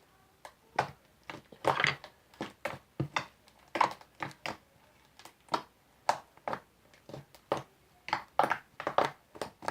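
Sticky homemade glue-and-soap slime being worked by hand, making irregular wet clicks and pops, about two a second.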